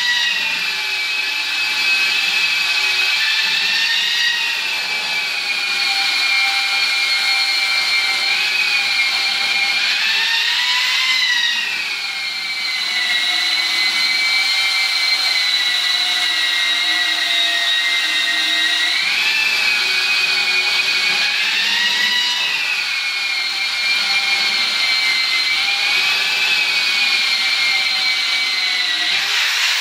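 Long-handled electric drywall sander with a round orbital head running continuously against drywall, giving a steady high whine whose pitch rises and falls a little several times.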